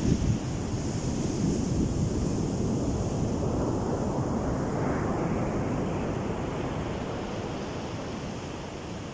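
Heavy surf on a sandy beach: a wave breaks and washes up, swelling to a peak about halfway through and then slowly fading. Wind buffets the microphone, with a low thump at the very start.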